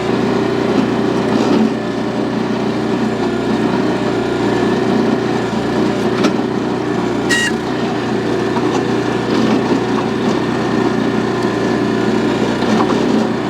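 Small gasoline engine of a towable hydraulic backhoe running steadily, driving the hydraulics while the bucket digs at hard-packed dirt and a tree root. A brief high squeak comes about seven seconds in.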